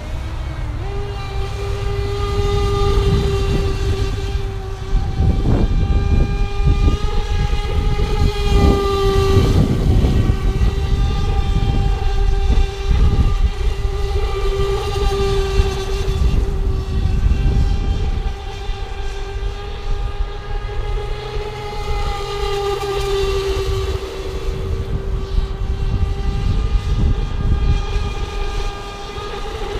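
Electric motor of an RC speedboat whining at speed: one steady high tone that wavers slightly in pitch, over a low rushing noise.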